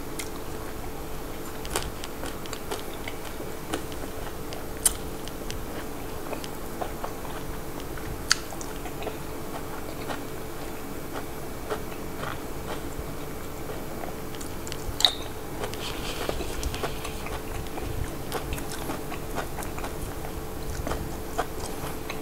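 A person chewing and biting fresh raw vegetables, with soft crunches and wet mouth sounds. A few sharper clicks stand out, and a steady faint hum runs underneath.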